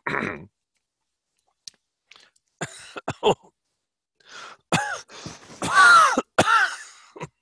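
A man clearing his throat and coughing in several short bursts: a few faint ones about two and a half seconds in, then louder ones in the second half.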